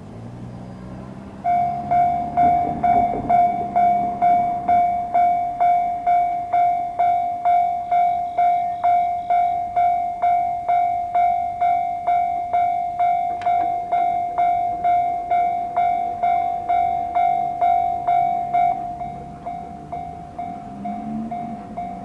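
Japanese railway level-crossing warning bell, the JR standard electronic crossing tone, starting about a second and a half in. It rings in a steady, even clang at about two strokes a second and turns noticeably quieter near the end.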